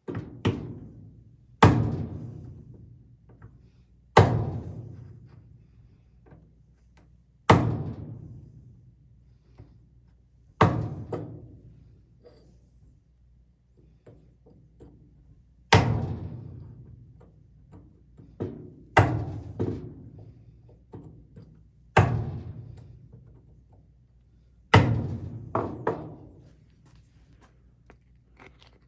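Heavy blows struck one at a time, about eleven in all and a few seconds apart, two of them in quick pairs; each thunk rings out and fades over a second or two. A steady low hum runs underneath.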